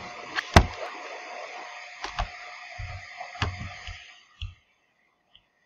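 Several sharp clicks and knocks at a computer desk, as a mouse is worked, over a steady hiss. The loudest knock comes about half a second in. The hiss cuts off suddenly about four seconds in.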